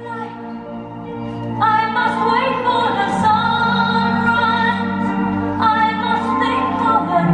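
Music: operatic singing with long held notes over sustained accompaniment, the chord changing a few times.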